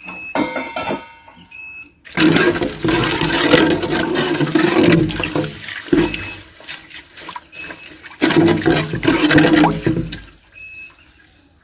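Water rushing and splashing in two spells of a few seconds each, with short high peeps now and then between them.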